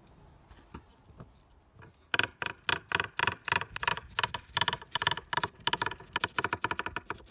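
Chef's knife slicing red cabbage into thin strips on a wooden cutting board: a quick, even run of crisp knife strikes through the cabbage onto the board, about four or five a second, starting about two seconds in.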